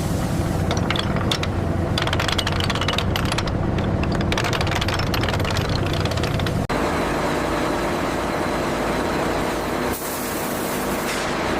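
Heavy factory machinery running: a loud low hum with a dense rattling crackle. It cuts off abruptly about two-thirds of the way through and gives way to a steady hiss.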